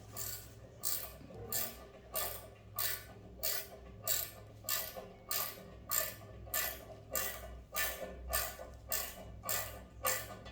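Socket ratchet wrench being worked back and forth to tighten the nuts holding down a toilet, its pawl clicking in a steady rhythm of about one and a half strokes a second.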